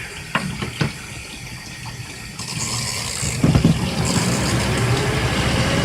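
Water running into the wash tub of a portable twin-tub washing machine, a few short clicks in the first second, then about three and a half seconds in the wash motor starts with a low hum and a slowly rising whine as the rinse cycle begins.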